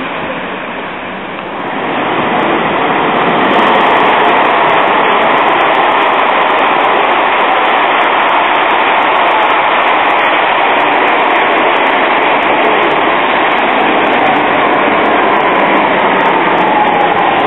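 Light-rail tram running into an underground station, a loud steady rumble of steel wheels on rail echoing off the station walls. Near the end a falling whine comes in as it slows to stop.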